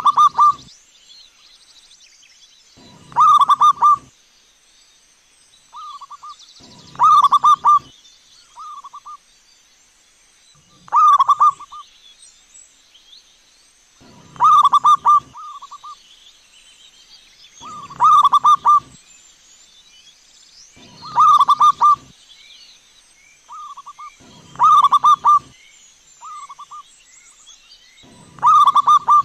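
Zebra dove (perkutut) cooing: a short phrase of quick, soft coos repeated about every three and a half seconds, nine times in all, with quieter single coos between some of the phrases.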